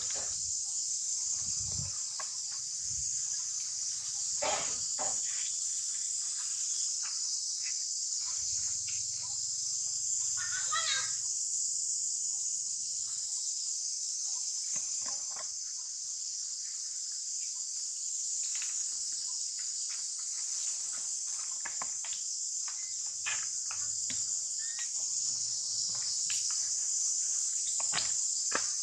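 Steady high-pitched drone of an insect chorus, with scattered faint clicks and a brief call about ten seconds in.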